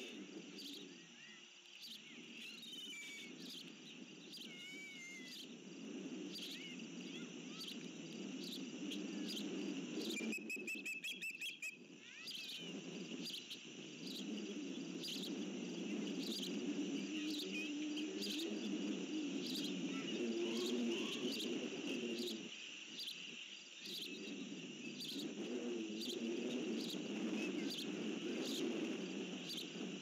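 Outdoor ambience: insects chirping in a steady, even rhythm over a low rushing noise, with scattered high bird calls. About ten seconds in comes a quick run of high whistled notes lasting a second or two.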